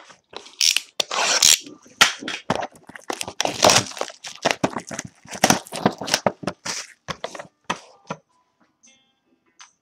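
The wrapping on a sealed box of hockey trading cards being torn and crinkled open: a quick run of crackling rips that stops about eight seconds in.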